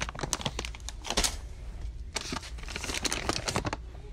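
Plastic bags of Apple Crush crinkling and rustling as they are handled and set into a shopping cart, a quick run of crackles and light knocks over a low steady hum.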